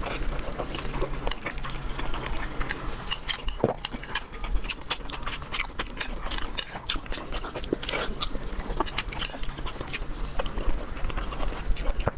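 Close-miked eating sounds: wet chewing, lip smacks and clicks coming irregularly, several a second, over a steady low hum.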